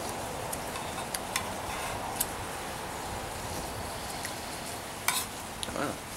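Steady hiss of rain, with a metal spoon clinking against a metal cup a few times as tea is stirred and sipped.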